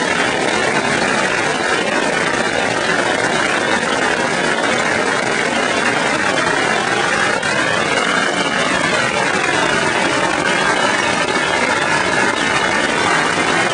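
A large wall of strung firecrackers going off in a continuous, dense crackle of rapid-fire bangs, so many at once that they blur into a steady roar.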